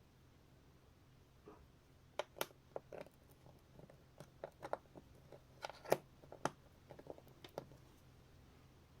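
Hands handling blind-box packaging and a small plastic toy figure: a scattered run of light clicks and taps with faint crinkling, starting about a second and a half in and stopping a little before the end.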